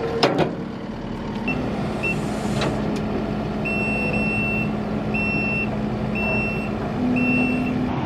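A couple of knocks, then a Kubota SVL compact track loader's engine running steadily, with its reversing alarm beeping about once a second. The engine picks up a little near the end.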